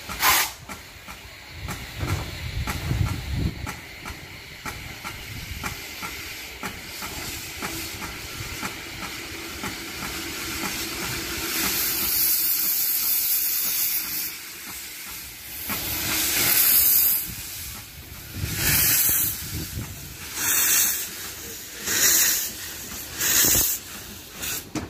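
A 1924 Orenstein & Koppel 0-6-0WT narrow-gauge steam tank locomotive hissing steam, then its cylinder drain cocks blowing off in a steady loud hiss about halfway in. From about two-thirds in it pulls away with five loud blasts of steam about one and a half seconds apart.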